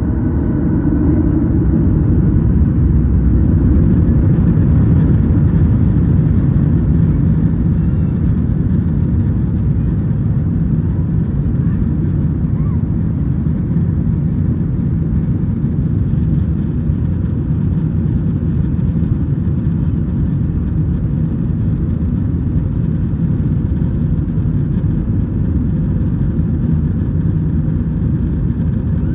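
Boeing 737 jet engines and deep rumble heard from inside the cabin over the wing as the airliner rolls on the ground. The noise swells over the first few seconds, then holds steady.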